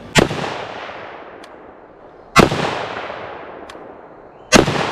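Three single shots from a Romanian SAR2 AK-74 rifle in 5.45x39, fired slowly about two seconds apart. Each shot is followed by a long echo that fades away.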